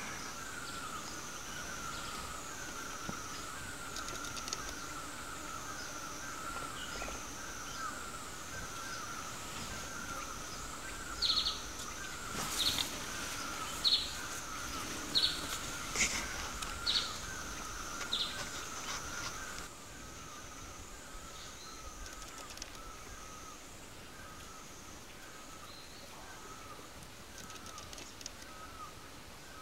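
Forest ambience: a bird gives a run of about eight short, sharp calls, roughly one a second, around the middle. Beneath it a steady high wavering hum, rising and falling about once a second, and a lower continuous chirring; the background drops slightly about two-thirds of the way through.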